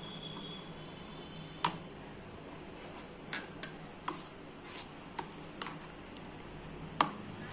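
Steel spoon stirring thick batter in a ceramic bowl, clinking against the bowl in scattered irregular taps, the sharpest clink near the end.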